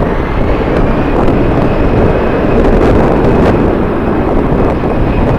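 Strong wind buffeting the microphone as a loud, steady rumble, with a faint thin high whine in the background.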